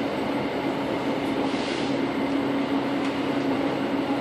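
Steady running noise of a moving electric commuter train, heard inside the carriage, with a constant hum and a brief hiss about a second and a half in.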